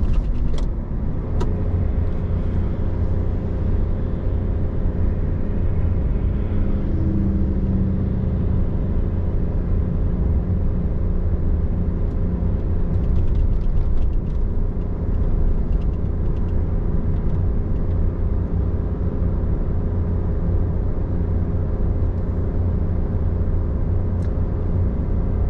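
Duramax 3.0-litre inline-six turbodiesel truck driving up a long mountain grade, a steady low drone of engine and road noise with no change in pitch, the engine giving all the power it has.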